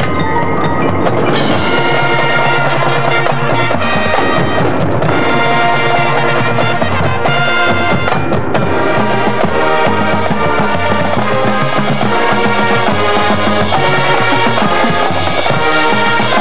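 High school marching band playing its field show: brass with front-ensemble percussion such as mallet instruments and timpani, the sound getting brighter and fuller about a second and a half in.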